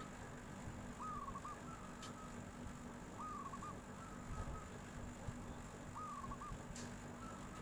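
Zebra dove (perkutut) cooing: short, flute-like warbled coos, three of them about a second, three seconds and six seconds in, each with a faint flat note between. A steady low hum runs underneath.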